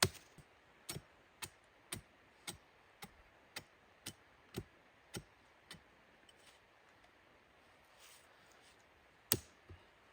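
A run of evenly spaced sharp knocks, about two a second, dying away about six seconds in, then one louder knock near the end.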